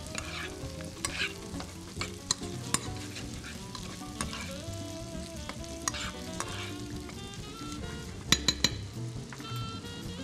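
Sliced beef with garlic and ginger sizzling in a frying pan while a utensil stirs and scrapes it around the pan. A quick run of sharp clicks comes about eight seconds in.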